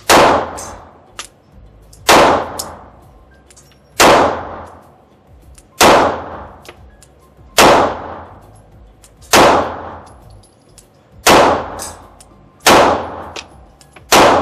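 Glock 48 9 mm pistol firing nine slow, deliberate single shots about two seconds apart.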